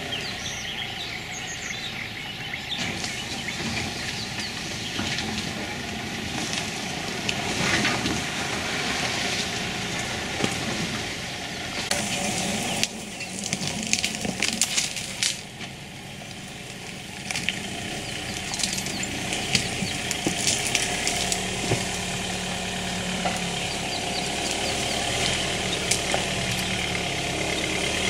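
Steady low hum of an idling engine, with clusters of rapid clicks about twelve to sixteen seconds in.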